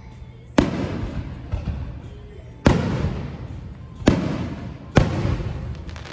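Aerial fireworks shells bursting overhead: four sharp booms at uneven intervals, each trailing off in a rolling echo.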